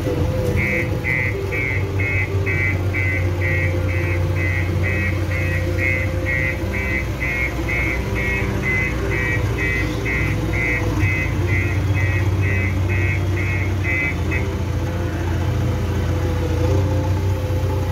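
JCB 3DX backhoe loader's diesel engine running steadily while its reversing alarm beeps a little over twice a second, stopping about three-quarters of the way through.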